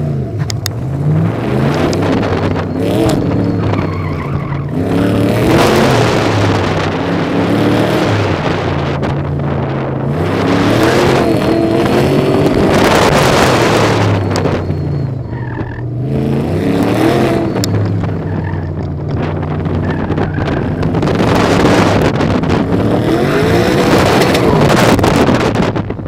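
1968 Corvette's V8 engine driven hard, revving up and falling back again and again as it accelerates and lifts, over a steady rush of wind and road noise.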